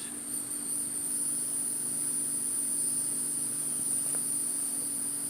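Honeybees buzzing steadily as a low hum around an opened hive box, over a steady high-pitched insect trill. A faint click about four seconds in.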